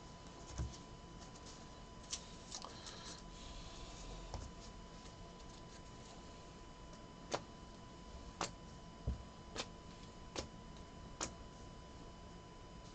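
Trading cards being handled and set down into piles: scattered light clicks and taps at irregular intervals, over a faint steady electrical whine.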